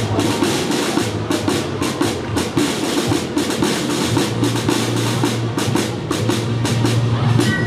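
A parade band playing: drums beating a fast, steady rhythm over a low held bass line.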